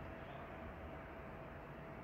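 Faint steady background noise with a thin, steady hum running through it: room tone, with no distinct event.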